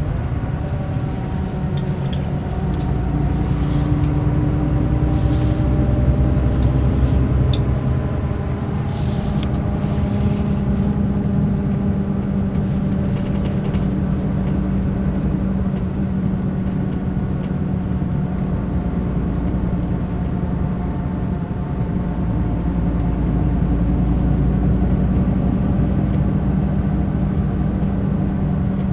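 Mercedes-Benz O500 RSD BlueTec5 coach's diesel engine running with a steady drone. Its pitch drifts a little over the first several seconds and then holds even. A few faint ticks come in the first ten seconds.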